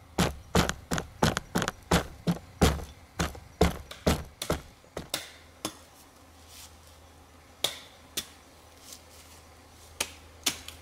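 Hatchet chopping into a pine log, about fourteen sharp strikes at roughly three a second, then a few slower scattered knocks.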